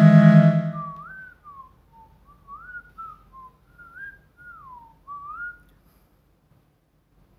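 A sustained music drone fades out over the first second, then a person whistles a slow, wandering tune of short gliding notes that stops about five and a half seconds in.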